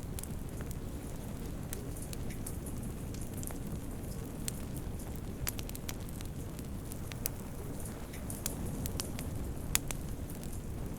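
Wood fire burning in a fireplace: a steady low rumble of flames with irregular sharp crackles and pops, one louder pop near the end.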